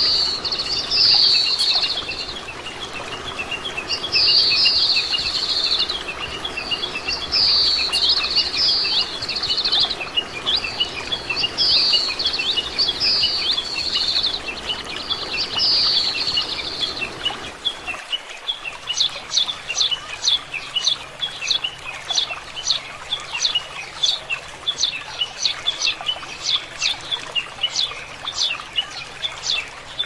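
Oriental greenfinches calling, short twittering, hooked high notes every second or two. About eighteen seconds in, the sound changes to Eurasian tree sparrows giving sharp, quick chirps, about two a second.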